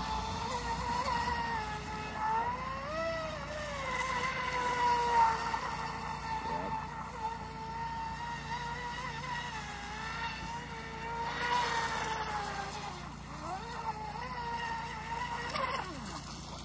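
WLtoys WL916 RC boat's Racerstar 4000kv brushless motor whining at speed on the water. The pitch stays high and steady, rises and falls a little, and drops twice near the end.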